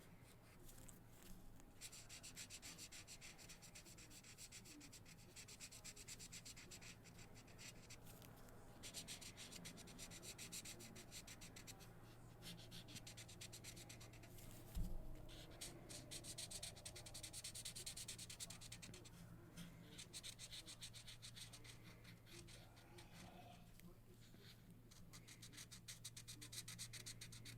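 Felt-tip markers rubbed back and forth on paper in quick colouring strokes, coming in several stretches of a few seconds each, faint and scratchy. A single thump about halfway through, over a faint steady low hum.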